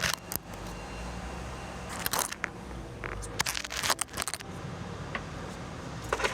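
Steady low machinery hum of a welding shop, with several brief clanks and rustles from handling gear and parts.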